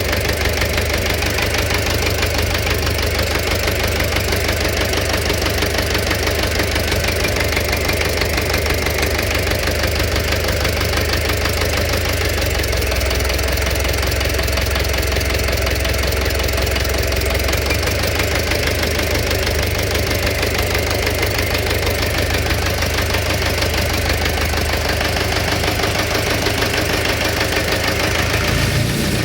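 An engine running steadily at idle with a rapid, repeating knock from inside it.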